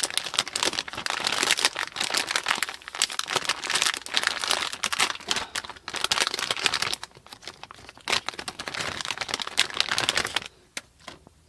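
Crinkling and rustling of plastic packaging as a graphics card is unwrapped, dense and irregular, stopping about ten and a half seconds in.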